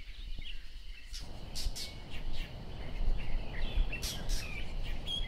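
Outdoor ambience of several small birds chirping and calling over a low rumble. About a second in, a steady hiss of background noise comes up beneath the calls.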